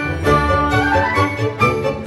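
Upbeat instrumental background music with strings and a steady rhythm.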